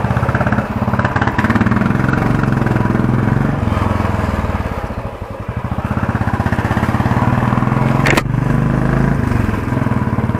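Royal Enfield Bullet's single-cylinder engine running as the motorcycle is ridden slowly, its thump rising and falling with the throttle and easing off briefly around the middle. A sharp knock about eight seconds in.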